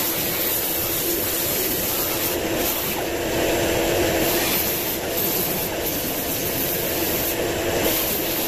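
Pneumatic die grinder with a small abrasive disc running and grinding steel flat bar, a steady whine over a constant hiss.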